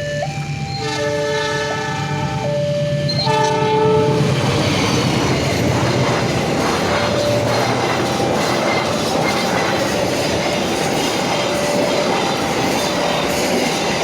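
Level-crossing alarm ringing in two alternating notes. A train's horn blasts twice in the first four seconds, then the train passes over the crossing with wheels clattering on the rails.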